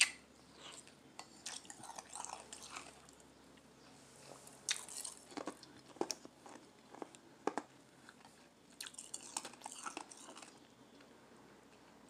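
Crushed ice being crunched and chewed in the mouth, in irregular clusters of crisp crunches with short pauses between them. A sharp click sounds right at the start.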